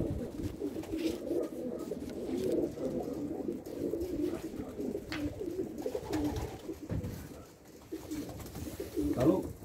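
Racing pigeons cooing, several birds at once, a continuous overlapping low warble.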